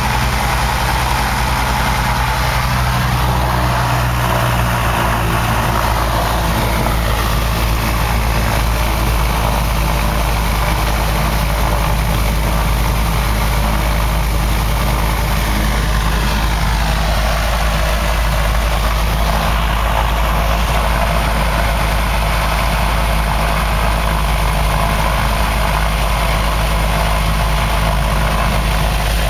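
Twin-engine Cessna 402's turbocharged piston engines and propellers droning steadily at low taxi power, heard inside the cabin, with the pitch drifting slowly up and down at times.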